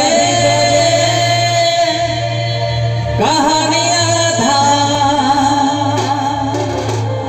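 Live Sambalpuri folk song through a PA: a male singer holds long, wavering notes over a steady low drone and band accompaniment.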